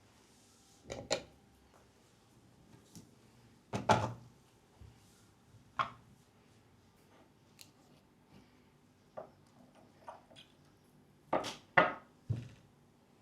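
A handful of sharp, short knocks and taps spread through a quiet room, with three in quick succession near the end.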